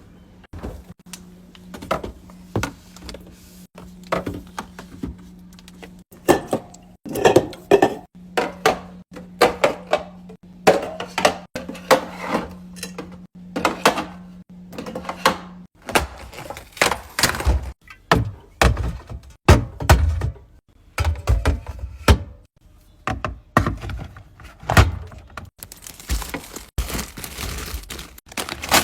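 Containers and groceries being set down and handled one after another while a fridge is restocked: a string of clacks, taps and thunks, heavier thumps in the second half. A steady low hum runs underneath and stops about halfway through.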